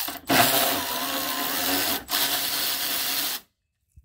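Milwaukee cordless electric ratchet running, backing out the front bumper's mounting screws. It runs in two spells with a short break about two seconds in, and stops suddenly about three and a half seconds in.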